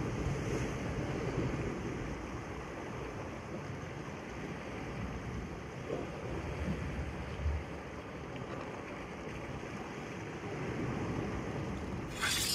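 Steady noise of wind and sea surf. Near the end there is a short, bright hissing burst.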